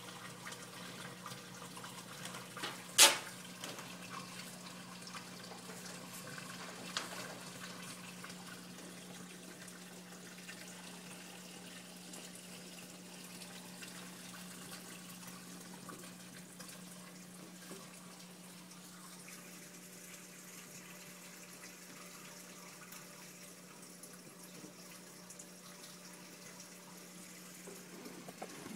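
Reef aquarium's water circulating: steady running, trickling water with a steady low hum. A single sharp knock sounds about three seconds in, and a fainter one about seven seconds in.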